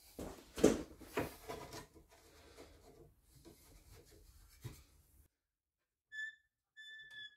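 Wooden quarter-round trim being slid and set against the metal fence and table of a Hikoki sliding mitre saw: light knocks and rubbing, loudest about a second in. The sound cuts off suddenly, then two short steady high tones follow, the second longer.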